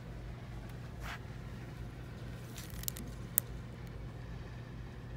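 Shop room tone: a steady low hum, with a short rustle about a second in and two sharp clicks around the three-second mark.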